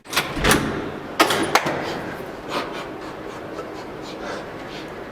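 A few sharp knocks in the first couple of seconds, then a steady hiss.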